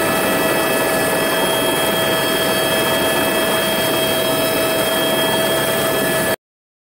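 Steady drone of an aircraft engine with several steady high whining tones over it, which cuts off suddenly about six seconds in.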